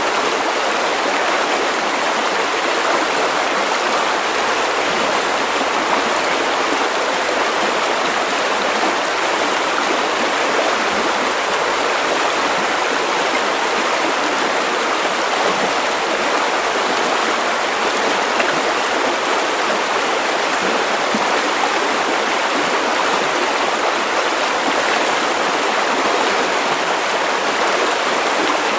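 A shallow river running steadily over stones, a continuous even rush and burble of water.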